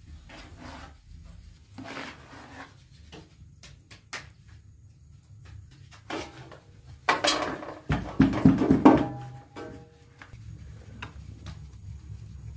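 Flour being shaken through a wooden-rimmed hand sieve: short rustling, scraping noises of the frame and flour, with a louder stretch of handling about seven to nine seconds in, over soft background music.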